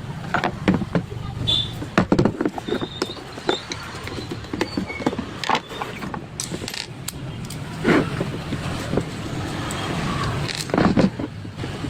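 Irregular sharp clicks and knocks of small metal parts and tools being handled, over a steady low background hum.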